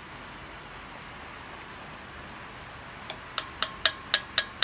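Low room hiss, then from about three seconds in a rapid run of sharp, ringing clinks, about four a second: a tin can of pork and beans being knocked against a bowl to empty it.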